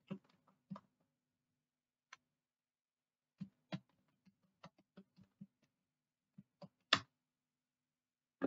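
Faint computer keyboard keystrokes as a password is typed: single and paired clicks at an irregular pace, with a pause of about two seconds. One louder keypress comes near the seven-second mark.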